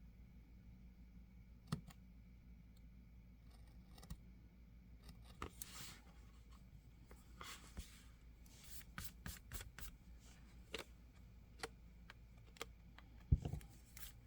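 Quiet hand-work with a plastic planner cover: scattered small clicks and taps, a couple of soft rustling swishes, and one sharper knock near the end.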